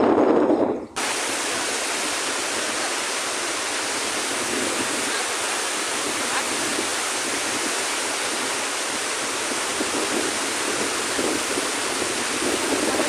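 Dam water rushing out in a large, steady, even torrent. It begins after a sudden cut about a second in from a louder, deeper noise.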